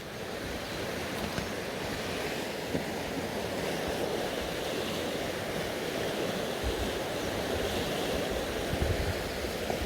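Fast river water rushing steadily over stones, with a couple of brief low wind buffets on the microphone near the end.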